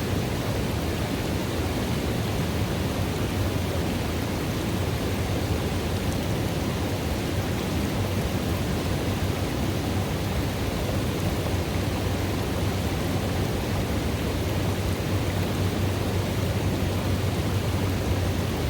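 River water running into a pool: a steady, even rushing that stays the same throughout, deepest in the low range.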